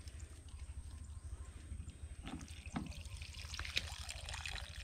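Water pouring and trickling faintly, with a few light clicks and knocks.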